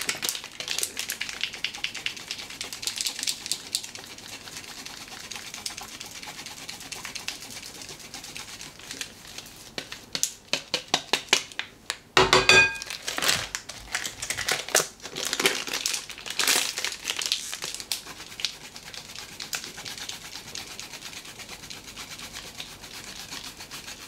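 Hard Parmesan-Romano cheese scraped back and forth on a handheld stainless-steel rasp grater, in runs of quick rasping strokes. A single ringing metallic knock comes about halfway through.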